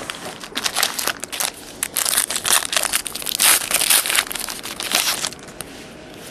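Crinkling and tearing of the foil wrapper on a pack of trading cards as it is ripped open by hand, a dense irregular crackle that eases off after about five seconds.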